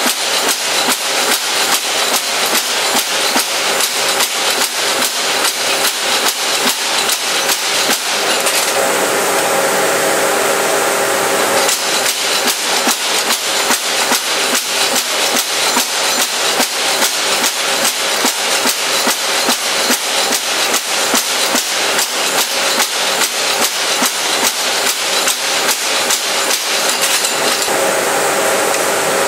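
Mechanical spring hammer pounding a red-hot carbon-steel V-tool blank in rapid, even blows, several a second. Twice the blows stop for a few seconds, about nine seconds in and near the end, and only the machine's steady running sound remains.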